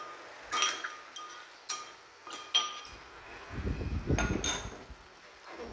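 Metal ladle and spoon knocking against a clay pot while stirring frog pieces: a few sharp, ringing clinks spaced about a second apart, with a duller rumble of handling about four seconds in.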